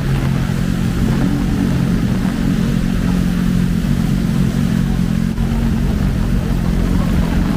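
City road traffic: vehicle engines running close by with a steady low hum, no single pass standing out.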